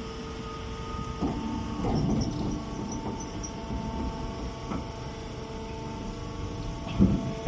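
Chopped hay baler machine running: a steady machine hum with a few fixed tones, broken by occasional knocks and clanks.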